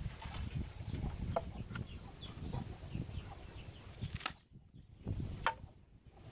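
Chickens clucking in the background over a low rumble, with two sharp knocks in the second half, the second one louder.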